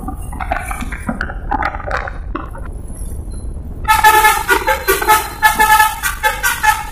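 Bus basuri musical horn (telolet horn) tootling a quick run of short notes that change pitch like a tune. It starts loudly about four seconds in.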